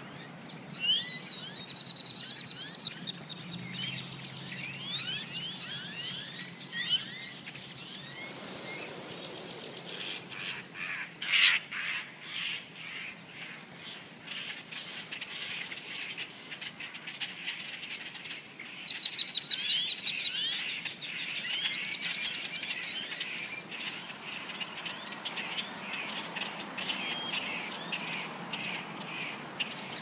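Large flock of small birds massing on and around power lines: a dense chatter of many overlapping chirps and calls, with a louder flurry about eleven seconds in.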